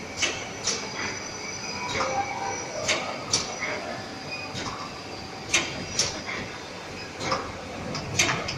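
Automated tea bag packing machinery running: a steady mechanical hum with a faint high whine, broken by sharp metallic clacks that come irregularly, often in pairs about half a second apart.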